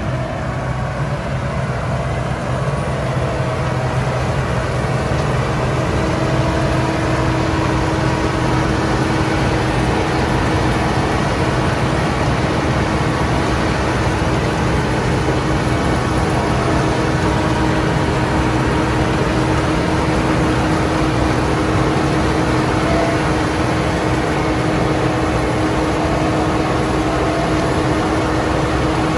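Case IH 2388 combine harvester running steadily under load, a continuous even diesel drone with a steady hum and no change in speed.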